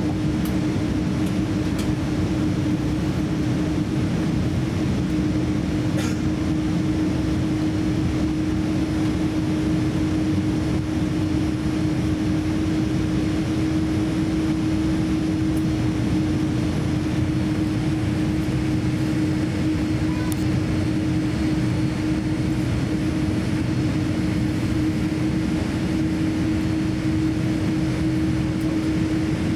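Steady cabin noise of a Boeing 787-10 taxiing: an even low rumble from the running engines and airframe, with a steady hum.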